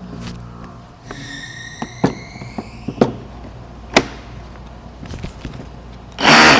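A battery pack slid into a cordless rotary hammer: several sharp clicks and knocks about a second apart as it is handled and latched. Near the end comes a short, loud rush of noise, the loudest sound here.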